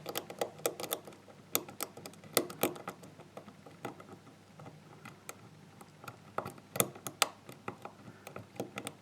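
Irregular small clicks of a lock pick and tension wrench working the pins of a GeGe euro-profile pin-tumbler cylinder. The pick is bouncing on the serrated pins under eased tension to work the lock out of a false set toward an open.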